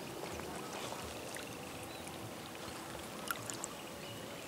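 Faint lapping of reservoir water, with two light clicks a little over three seconds in.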